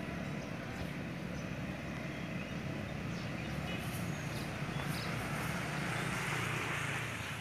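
Steady low engine rumble from a motor vehicle, with a haze of traffic noise over it.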